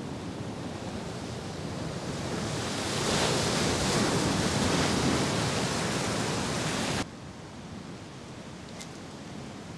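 Sea swell surging in against a rock ledge: a wash of surf that builds over a couple of seconds, holds loud, then cuts off suddenly about seven seconds in to a quieter wash.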